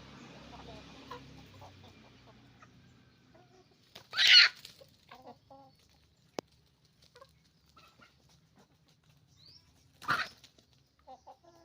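Chickens clucking softly in short scattered calls, broken by two loud, harsh outbursts, one about four seconds in and a shorter one near the end, with a single sharp click between them.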